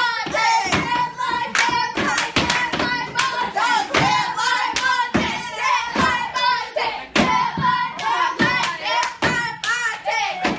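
Hands clapping in a quick, steady rhythm with singing over the beat.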